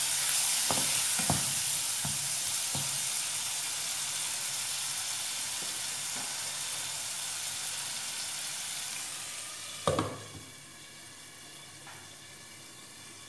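Prawns sizzling in a nonstick frying pan with a wet masala just thinned with water, the sizzle slowly dying down, with a few spatula knocks against the pan in the first three seconds. Just before ten seconds in comes a louder clunk as a glass lid goes on, and the sizzle carries on quieter under it.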